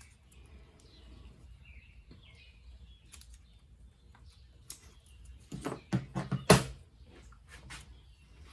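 Stainless steel still fittings being handled, a cluster of sharp knocks and clicks about five and a half to seven seconds in, the loudest a single hard knock. The parts are a Teflon-taped thermometer fitting and a tri-clamp.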